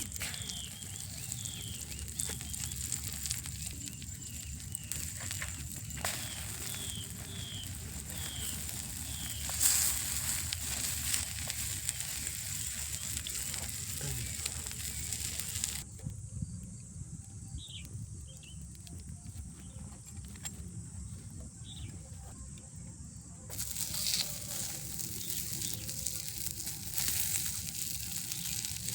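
Food sizzling in oil over an outdoor cooking fire, a steady hiss, with a bird chirping about twice a second during the first several seconds.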